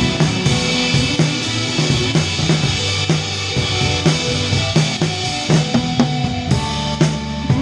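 Live rock band playing at a sound check, the drum kit up front: a steady beat of kick drum, snare and cymbals over sustained bass and guitar notes.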